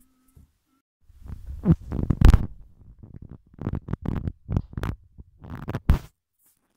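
Irregular low rumbling and bumping close on the microphone, starting about a second in and stopping about a second before the end, the kind of noise made when something rubs or knocks against it.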